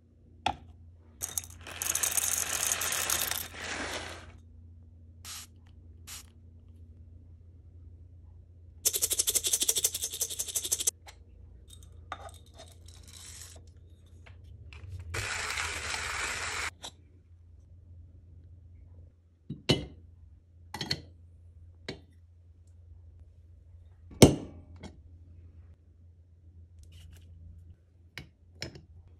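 Espresso puck preparation: coffee grounds rattling in several bursts, one of them a fast shaking of the dosing cup by hand. After that come a handful of sharp metal knocks and clicks from tools set on and lifted off the portafilter, the loudest about three-quarters of the way through.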